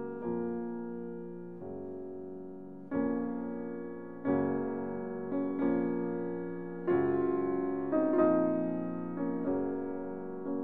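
Background piano music: chords struck about once a second or two, each fading away before the next.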